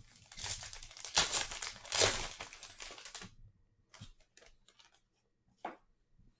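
A pack of 2021 Bowman Draft baseball cards being torn open, its wrapper crinkling for about three seconds, followed by a few soft clicks as the cards are handled.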